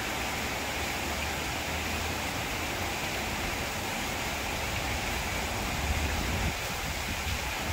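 Steady rain falling, an even hiss, with a low rumble underneath that swells briefly about six seconds in.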